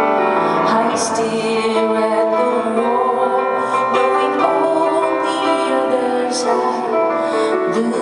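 Live solo piano with a woman singing over it: held piano chords struck afresh every few seconds under long sung notes.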